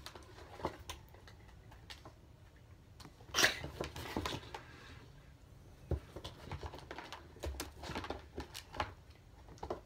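Scattered handling noises: light rustles and small knocks, with one louder rustle about three and a half seconds in.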